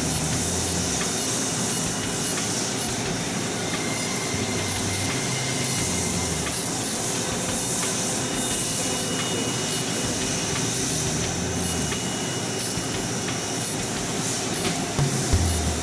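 Steady machine hiss from the laser-marking setup, with a low hum that comes and goes as the rotary table indexes the part between marks.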